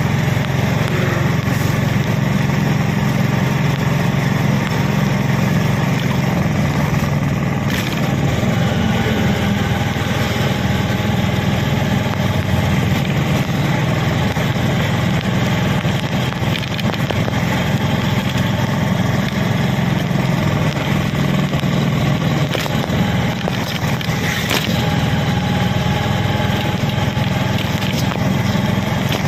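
Vehicle engine running steadily at cruising speed with road noise, heard from inside the moving vehicle: an even, low drone that holds throughout.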